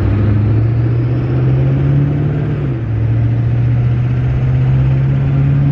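6.6-litre Duramax LB7 V8 turbo-diesel pulling the pickup along, heard from inside the cab. The engine note climbs, drops back about two and a half seconds in as it shifts up, then climbs again.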